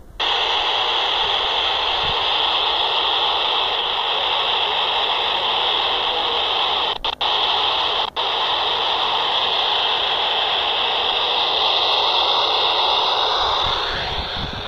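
Steady FM static hiss from a hand-held amateur radio transceiver with no signal coming through, the SO-50 satellite having faded out of range. The hiss cuts out briefly twice, about seven and eight seconds in, and dies down near the end.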